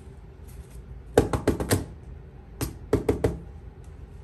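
Fingers drumming on the top of a cardboard shipping box: two quick runs of about four taps each, a second or so apart.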